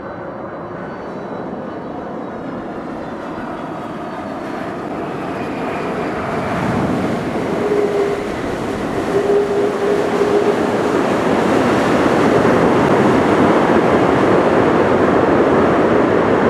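Boeing 767-300ER airliner's jet engines, growing steadily louder as the aircraft comes closer, then holding at a loud, broad rushing noise through the second half.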